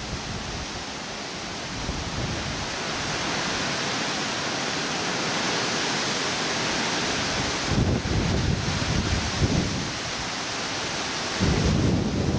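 Wind blowing through the trees, a steady rustling hiss of leaves, with gusts buffeting the microphone in low rumbles about eight seconds in and again near the end.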